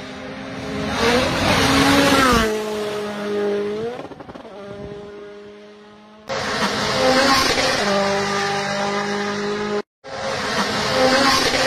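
Rally cars at speed on a gravel forest stage: one car's engine swells to full revs as it passes, its note dipping and rising, then fades away. After an abrupt cut, another rally engine is heard running hard at high revs, with a brief dropout near the end.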